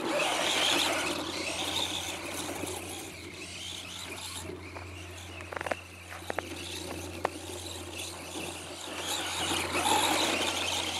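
Traxxas Slash 4x4 RC truck's electric motor and drivetrain whining as its wheels spin and slide through snow, louder as it passes close near the start and again near the end. A few sharp clicks come in the middle.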